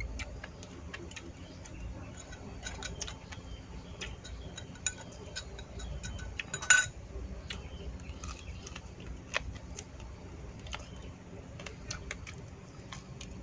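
Chopsticks clicking and knocking against ceramic bowls while someone eats, scattered small clicks with one louder clink about halfway through.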